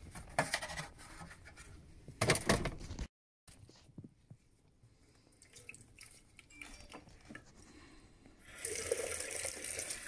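A few knocks and handling clicks in the first three seconds. Then, near the end, a kitchen tap starts running steadily into a stainless steel sink, pouring into the boiler's plastic condensate trap to rinse it.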